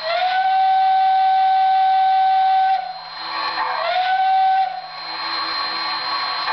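Model train whistle on a Pennsylvania steam turbine locomotive set, blown twice, long then short, each blast sliding up in pitch as it starts. It is followed by the rattling hum of the locomotive running on the track.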